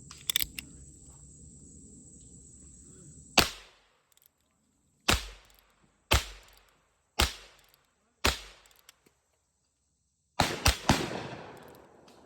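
Heritage Rough Rider .22 LR single-action revolver firing: five shots about a second apart, then three in quick succession near the end, each with a short ringing decay. A few light clicks come near the start.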